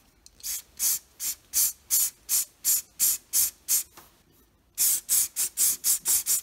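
Pump spray bottle of CA accelerator squirted onto fresh CA glue to cure it, in short hissing strokes. There are about ten at roughly three a second, a brief pause, then about seven quicker ones.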